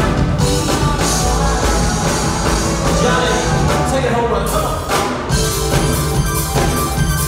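Live rock band playing through the hall's PA: drum kit, electric guitar, keyboards and bass under a lead vocal.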